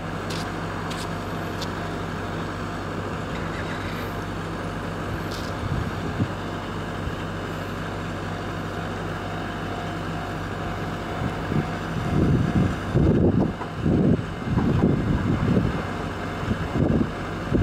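Wind on the microphone over a steady outdoor hiss with a faint low hum; from about two-thirds of the way in, strong gusts buffet the microphone in irregular low rumbling surges.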